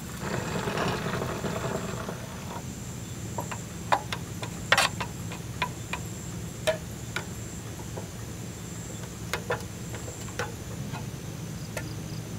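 Water poured from a kettle into a stainless steel camping cup for about two seconds, then a metal spoon stirring the drink, clinking sharply and irregularly against the cup's rim and sides.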